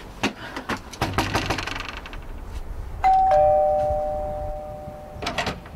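Two-tone ding-dong doorbell chime, a high note then a lower one, fading out over about two seconds.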